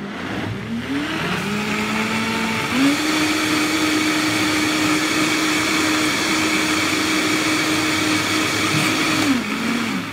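Countertop blender motor running on a liquid salsa. It spins up in steps over the first few seconds, holds a steady high-speed whine, and winds down just before the end.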